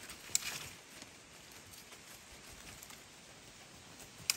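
Dry twigs snapping as they are broken off a dead shrub by hand for kindling: a sharp snap about half a second in with a brief crackle after it, and another snap near the end.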